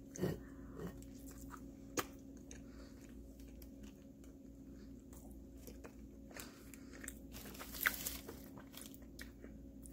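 A person chewing a bite of warm brownie, faint close-up mouth sounds with scattered small clicks and one sharper click about two seconds in, over a steady low hum.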